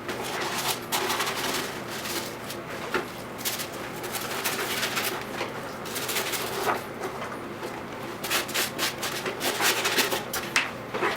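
Irregular rubbing and scraping strokes on a shoe, like scrubbing or sanding by hand, mixed with small clicks and taps.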